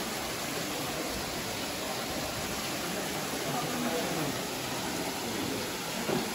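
Faint, indistinct voices over a steady hiss of background noise.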